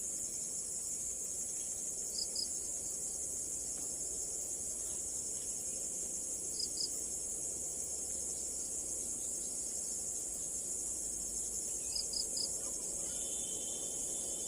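Insects, crickets or the like, shrilling in a steady high drone, with a few short high chirps in pairs or threes, about two, six and a half and twelve seconds in.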